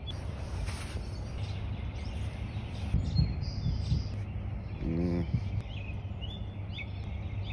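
Outdoor background: a steady low rumble with scattered small bird chirps, and one short voice-like sound about five seconds in.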